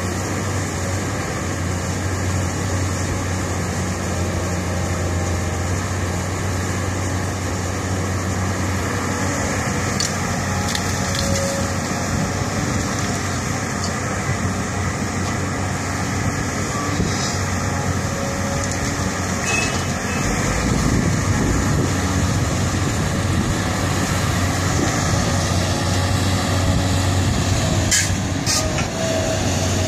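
Caterpillar 320 excavator's diesel engine running steadily as it digs and loads soil into a dump truck. About two-thirds of the way through, a deeper engine rumble joins in and the sound grows louder as the loaded ten-wheel dump truck moves off. A couple of sharp knocks come near the end.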